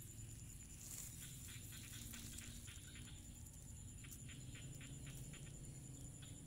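Faint rice-paddy outdoor ambience: quick, irregular runs of small chirping clicks over a steady high-pitched whine.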